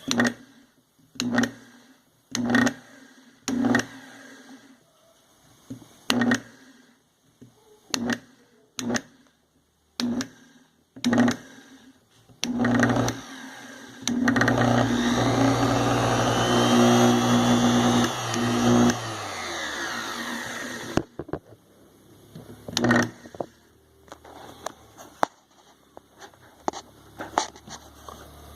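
AWT plunge router's motor at low speed making the strange noise it is being checked for: it hums in short bursts about once a second, cutting in and out. About halfway through it runs steadily for about five seconds with a whine that rises and falls, then winds down, and the short bursts return.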